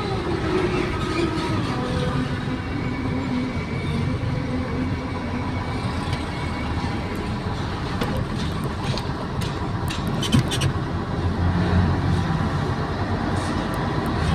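Mitsubishi truck's diesel engine and road noise heard from inside the cab while driving slowly in traffic. The engine note falls over the first few seconds, and a few clicks and rattles come about two-thirds of the way through.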